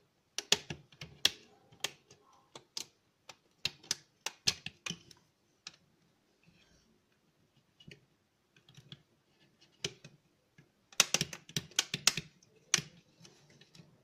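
Irregular sharp clicks and taps of hands handling an opened router's circuit board, metal frame and a thin wired cable, in bunches with quieter gaps between.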